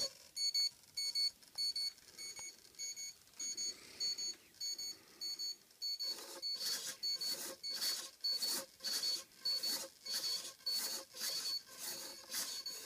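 Steering servo of an RC model outboard racing boat whirring in short rasping bursts about twice a second as it swings the cable-steered outboard motor back and forth, starting about halfway through. Under it, short high electronic beeps repeat about twice a second throughout.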